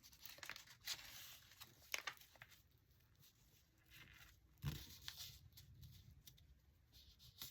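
Faint rustling and light taps of paper and cardstock being handled and pressed on a tabletop, with a soft thump about four and a half seconds in.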